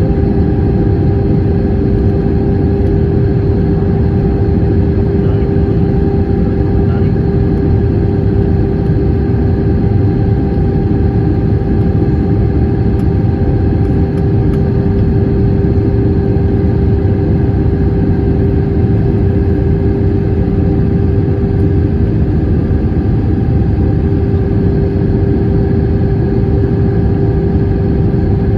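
Airbus A320 cabin noise: the engines and the airflow make a steady, loud rumble with a constant hum running through it.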